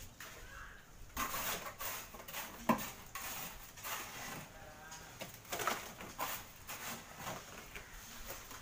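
A trowel and a small plastic pail scraping and scooping wet cement mortar in a plastic basin: repeated short scrapes and knocks, with one sharp knock about three seconds in.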